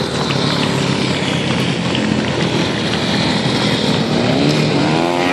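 Several supermoto racing motorcycles running hard past the fence, their engines blending into one continuous engine noise. Near the end one engine's note rises as that bike accelerates.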